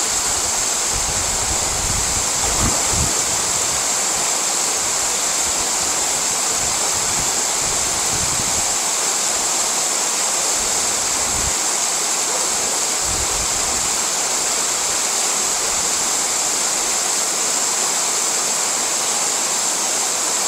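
Waterfall rushing steadily, an even hiss of falling water. Low rumbles on the microphone come and go in the first two-thirds.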